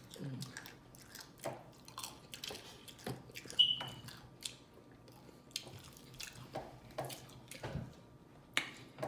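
Close-up chewing and lip smacking: irregular wet mouth clicks every fraction of a second, with a short hum right at the start. About three and a half seconds in there is a brief high squeak, the loudest sound.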